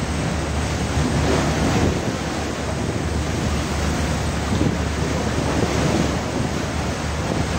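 Seawater rushing and sloshing across a fishing boat's deck, with a steady low hum underneath.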